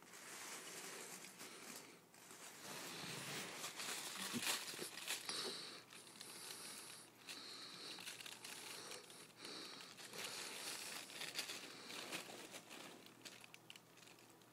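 Faint rustling and crinkling with scattered small clicks as several ferrets scrabble and jostle in a fabric nook lined with crinkly foil.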